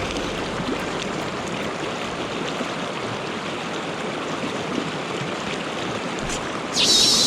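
Mountain stream water rushing steadily over rocks. Near the end a loud, high warbling sound starts suddenly.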